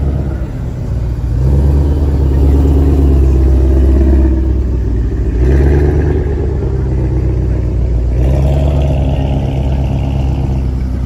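The deep V8 exhaust rumble of a Ford Mustang Shelby GT500 pulling away slowly. It swells with light throttle about a second and a half in, again around five and a half seconds, and near eight seconds. A following Audi R8's engine joins toward the end.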